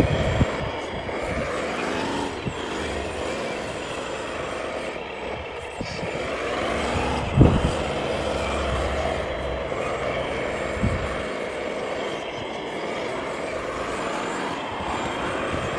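RC model wheel loader running as it digs in soil: a steady motor and hydraulic drone whose pitch rises and falls a few times, with one sharp thump about seven and a half seconds in.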